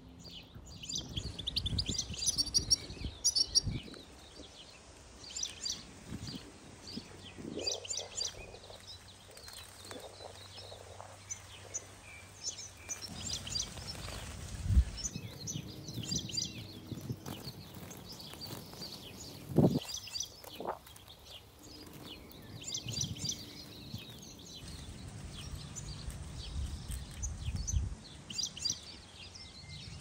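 European goldfinches twittering, many quick high chirps and trills repeating over and over, with a couple of dull knocks along the way.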